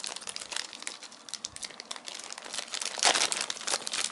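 Plastic packaging crinkling and rustling as it is handled, in irregular crackles that grow louder about three seconds in.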